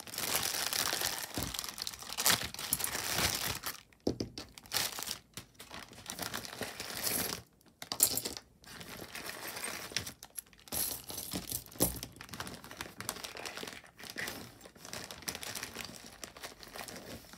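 A handful of costume jewelry (metal bracelets, chains, beaded necklaces) being handled and set down in a heap, with irregular clinks and rattles of metal and beads over a steady rustling.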